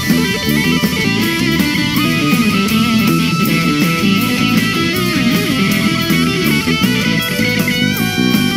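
Live band playing an instrumental: electric guitar lead over keyboard, with a steady beat.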